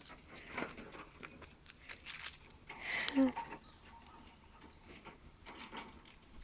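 Steady high-pitched insect chirring, with light footsteps and small clicks on asphalt. A short vocal sound comes about three seconds in.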